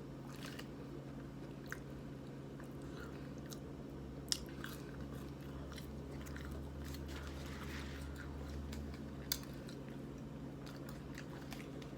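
A person chewing food close to the microphone, with a few sharp clicks of biting and crunching scattered through.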